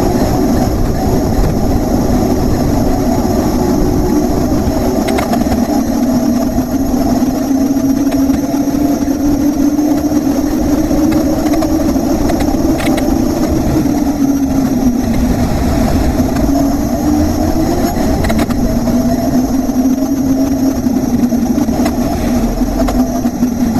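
Wind rushing over a bike-mounted action camera's microphone while cycling, a loud steady rumble with a low hum that wavers slowly up and down in pitch.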